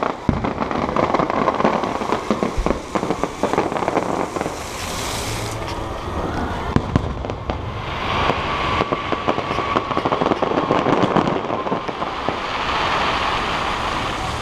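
Fireworks going off overhead: quick pops and crackling of bursting shells, a dense run of crackle in the first few seconds, then scattered pops.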